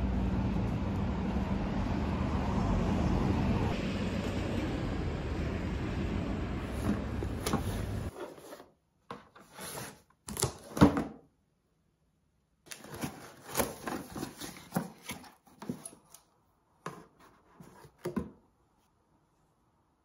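Steady rumbling outdoor street noise for about eight seconds, then a cardboard box being opened by hand: tape slit with a cutter, sharp scrapes, cardboard flaps and rustling handled in short bursts, the loudest snap about eleven seconds in.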